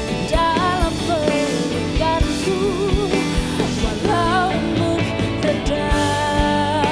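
Live pop-rock band: a woman singing lead over drums, electric guitars and keyboards, holding a long, wavering note near the end.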